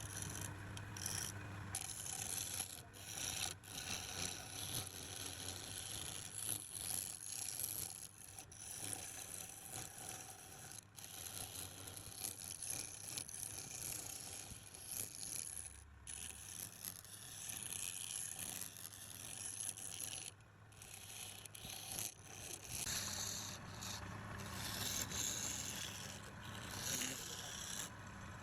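Wood lathe running while a hand-held turning tool scrapes and cuts the spinning wood: a continuous hissing scrape over a low steady motor hum, with short breaks now and then as the tool lifts off.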